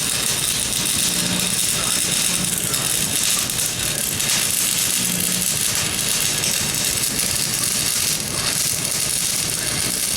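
Stick welder arc burning steadily, a continuous sizzling hiss, with a faint low hum that comes and goes.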